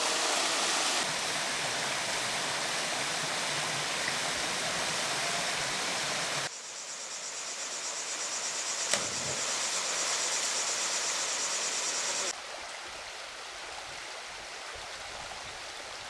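Rushing water from a small waterfall pouring into a rock pool, then water sliding down a rock cascade, then a quieter shallow stream, changing abruptly between sections. A high pulsing buzz sits over the water in the middle part, with one sharp click about halfway through.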